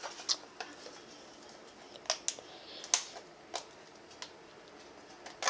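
Scattered light clicks and taps, about eight spread unevenly over a few seconds, from bottles and utensils being handled while slime ingredients are added.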